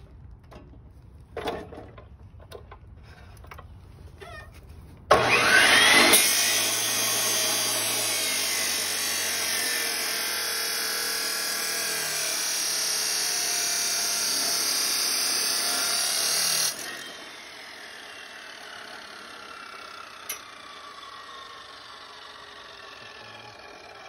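A power cutting tool spins up with a rising whine about five seconds in and cuts steadily through stock for about twelve seconds. It stops abruptly, and the tool winds down more quietly afterwards. Faint knocks of handling come before the cut.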